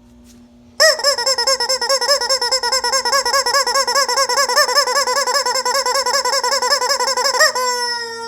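Rubber chicken squeaky toy squealing: one long high-pitched squeal with a fast warble, starting about a second in and sliding down in pitch as it dies away near the end.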